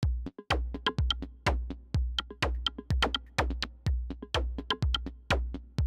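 Electronic intro music: a drum machine beat with a deep kick drum about twice a second and sharp clicking percussion between the kicks.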